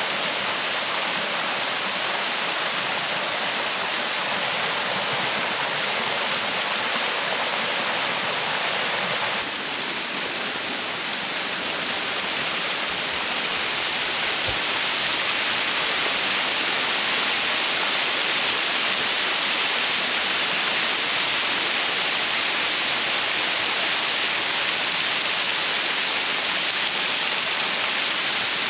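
Sigua Falls, a waterfall, rushing in a steady, constant roar of falling water. It becomes a little louder after about ten seconds.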